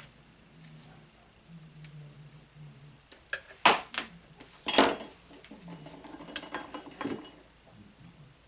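Small metal tools and parts clicking and clinking during disassembly of an RC rock crawler, with a few sharp clicks about three and a half to five seconds in and lighter ones after.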